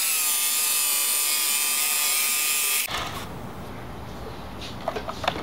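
Electric carving knife running as its blade cuts through seat foam, a steady motor whine that cuts off suddenly about three seconds in. A few light clicks follow near the end.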